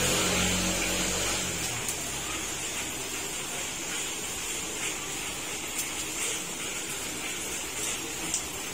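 Heavy rain falling steadily as an even hiss, with scattered small drip ticks. A low engine hum fades out about a second and a half in.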